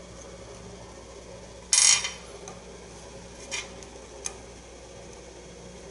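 Hands handling thread and a pull-through loop at a rod's thread wrap: one short rustling scrape about two seconds in, then two faint ticks, over a steady low hum.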